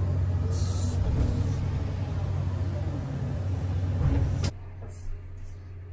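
Komatsu PC3000 mining excavator's diesel engine and hydraulics droning heavily inside the cab as the machine swings between truck and dig face, with a short hiss under a second in. About four and a half seconds in the sound drops abruptly to a quieter, steadier drone.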